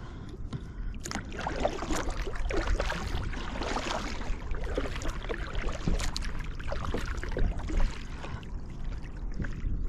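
Water splashing and gurgling close to a kayak, with many small irregular splashes over a steady low rumble.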